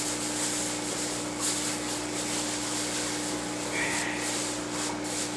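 Plastic shipping bags and packing peanuts rustling and scraping as they are handled, in a few short bursts, over a steady low hum.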